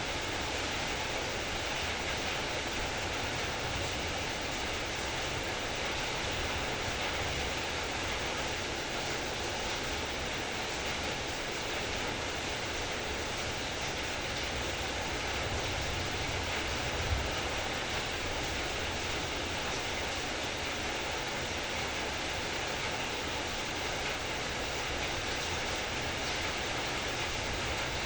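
Heavy rain falling steadily, a dense even hiss of rain. One brief low thump about two-thirds of the way through.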